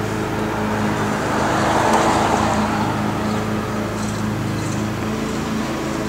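Steady low hum and rushing road noise heard from inside a parked car; the rush swells and fades about two seconds in, like a vehicle going past.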